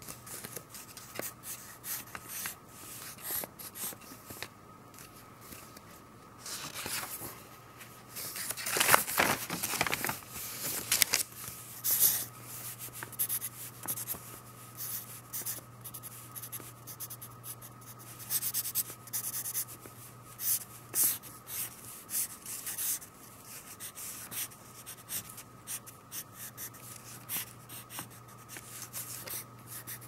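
Pencil sketching on paper: the tip scratching in short strokes with brief pauses between them. About a third of the way in comes a longer, louder run of quick strokes.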